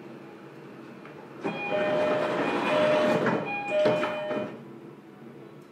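Passenger doors of a JR Kyushu 305 series electric train sliding shut, heard from inside the car: a two-note door chime sounds three times over the rush of the doors, and they close with a knock about four seconds in.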